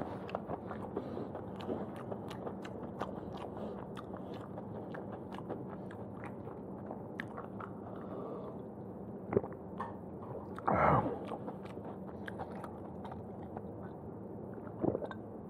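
Close-miked mouth noises after eating: frequent small lip and tongue clicks over a steady hiss, as the mouth is wiped and water is drunk from a glass, with a louder gulp about eleven seconds in.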